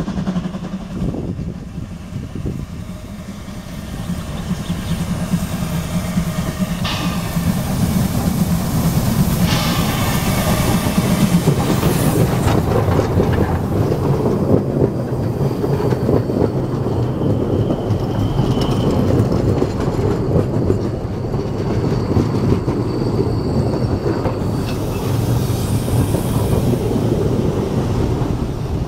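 Narrow-gauge steam train approaching and passing close by: the steam locomotive works past, growing louder over the first several seconds, then its open wagon and coaches roll past with wheel clatter over the rails.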